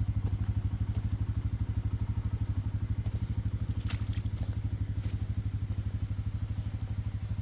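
Four-wheeler (ATV) engine running steadily at low revs with an even putter, and a few faint clicks about three to four seconds in.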